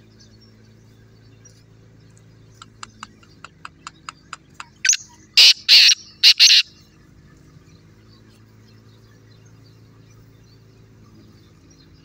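Caged francolin (tetar) calling: a run of about eight short, sharp ticking notes that speed up, then a burst of four loud, harsh, grating calls.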